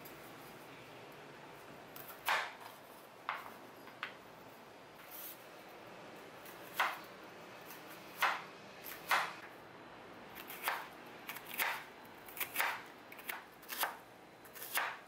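Kitchen knife slicing bitter gourd on a wooden cutting board: separate strokes knocking on the board, a second or more apart at first, then about two a second in the second half.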